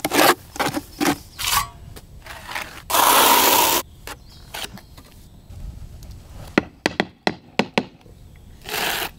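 A steel trowel scraping through mortar in a bucket and spreading it onto an aerated concrete block: a series of short scrapes, with a longer, louder scrape about three seconds in. A few sharp taps come about two-thirds of the way through.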